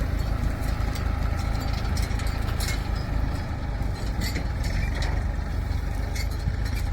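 Heavy diesel engine running steadily at low speed, with a few light clicks and clinks over it.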